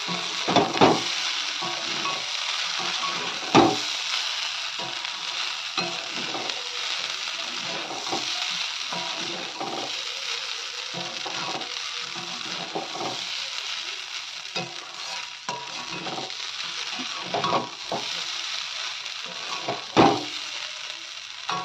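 Pasta stir-fry sizzling in a hot metal kadai while a spatula stirs it, scraping and knocking against the pan now and then; the loudest knocks come about a third of the way in and again near the end.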